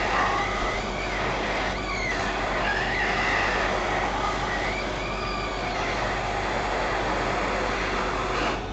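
Hot air rework station blowing on an iPhone 6 logic board: a steady rushing hiss with a whistle that wavers up and down during the first half, dropping away near the end. It is heating the metal shield over the baseband CPU to melt its solder so the shield can be lifted off.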